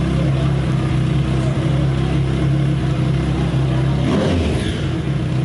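Motorcycle engine idling steadily, with a brief waver in the note about four seconds in.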